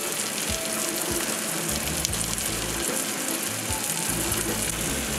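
Triple tail fillet frying in butter in a cast iron skillet: a steady sizzle.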